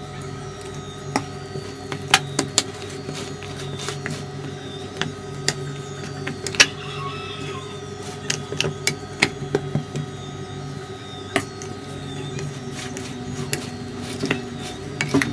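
Metal spoon clinking and scraping against a glass mixing bowl while stirring wet ingredients into flour: irregular sharp clicks, a few louder than the rest, over a steady low hum.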